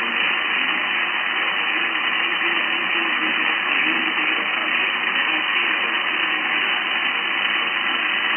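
Radio receiver hiss: steady static heard through the radio's thin, narrow audio, with faint wavering traces of a weak distant station buried in it. The long-distance signal is fading out into the noise.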